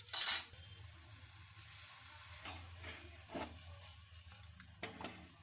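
Milk tea boiling in a pan while a spoon stirs it. A loud clatter comes about a quarter second in, then a steady bubbling hiss with a few short scrapes of the spoon against the pan.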